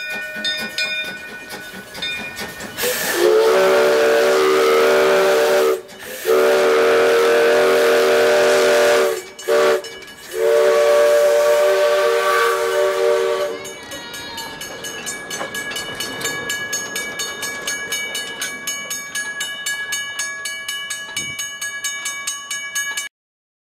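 Henschel steam tank locomotive's whistle blown in four blasts, long, long, short, long: the grade-crossing signal. A rapid metallic ringing and clanking runs before and after the whistle.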